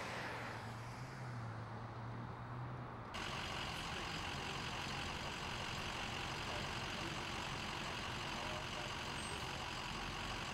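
Vehicle engines running outdoors: a steady low engine hum, then, after an abrupt change about three seconds in, the steady running noise of idling trucks.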